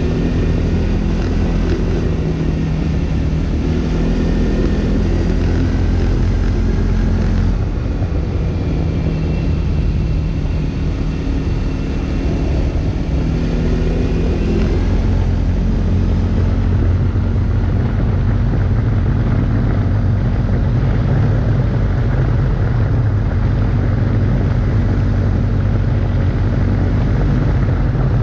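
CFMoto CForce 450 S quad's single-cylinder engine running under way. Its note shifts about 7 seconds and again about 15 seconds in, then runs heavier and lower as the quad climbs a hill.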